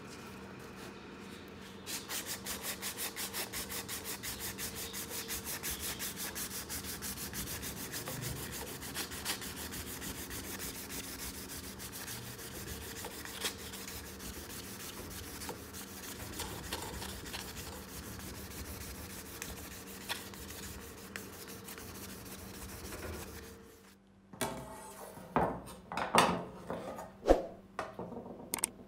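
Clear packing tape being pulled off its roll and wound around a throwing knife's wooden handle, with a fast, even crackle of tape peeling from the roll that stops about 24 seconds in. Near the end come a few sharp clinks with a ringing tail as the steel throwing knives are set down on a wooden table.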